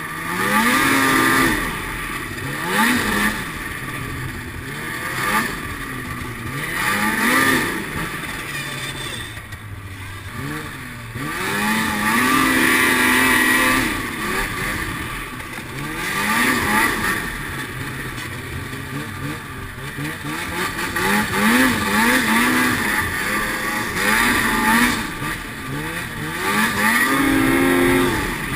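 Snowmobile engine under the rider, revving up again and again as the throttle is opened and let off: each burst rises in pitch and swells in loudness, a few held for a couple of seconds, then falls back to a lower drone between.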